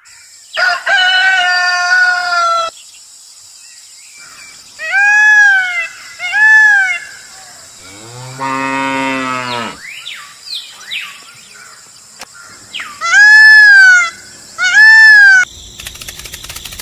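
Farm-animal calls: a cow mooing once, long and low, about eight seconds in, among other higher calls, including a long call at the start and short rising-and-falling calls in pairs, the loudest pair near the end. A rapid buzzing begins shortly before the end.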